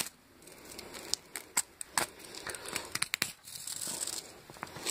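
Crinkling and tearing with scattered sharp clicks as a small transformer coil's plastic bobbin and tape wrapping are broken apart by hand to free the copper winding.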